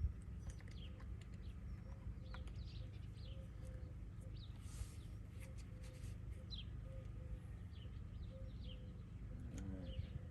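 Outdoor ambience: small birds chirping on and off over a steady low rumble.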